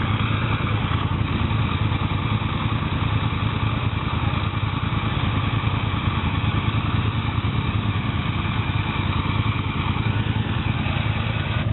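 ATV engine running steadily at a constant speed.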